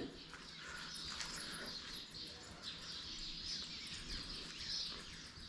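Small birds chirping repeatedly over a steady outdoor background hiss.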